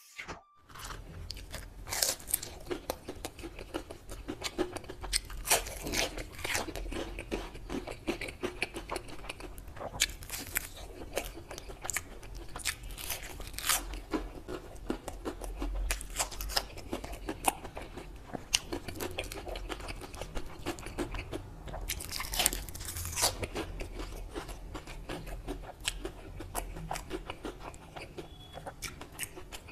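Close-up eating sounds: a man biting and chewing mutton curry and rice eaten by hand, with many irregular crunches and wet clicks.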